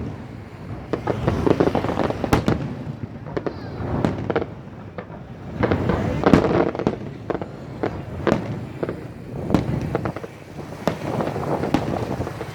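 New Year fireworks display: a run of repeated bangs and crackling bursts, the loudest about six seconds in.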